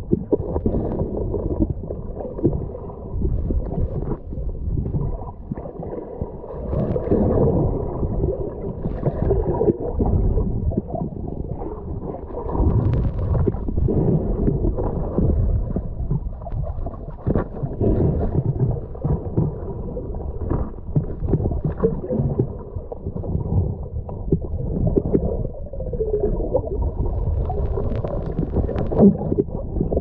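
Underwater sound picked up through a camera's waterproof housing: low, muffled water noise with gurgling, swelling and fading as the diver moves along the rocks.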